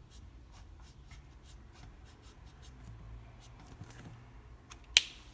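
Copic alcohol marker tip dabbing and stroking lightly on drawing paper, many small scratchy strokes, then one sharp click about five seconds in.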